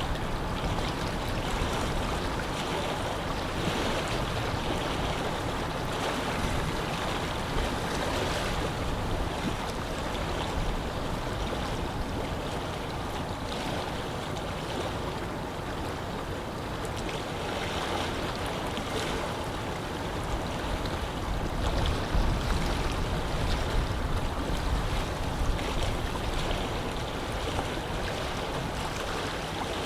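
Wind blowing over a lake, with small waves lapping at the shore, in a steady wash of noise that swells a little now and then, with low gusts rumbling around the middle and again near the end.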